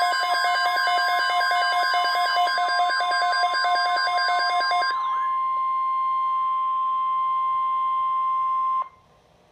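NOAA Weather Radio's 1050 Hz warning alarm tone, a single steady electronic tone signalling an Emergency Alert System message. For the first five seconds a second electronic alarm beeps rapidly over it. The tone cuts off suddenly near the end, leaving near silence.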